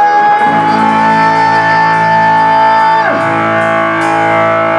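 Live rock band playing loud, with electric guitar. A high held note rides over the band and dives steeply in pitch about three seconds in.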